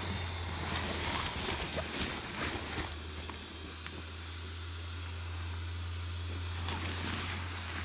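Built-in 12-volt blower fan of an inflatable yard decoration running with a steady low hum, while the nylon fabric rustles and crinkles as the figure fills with air; the rustling is busiest in the first few seconds.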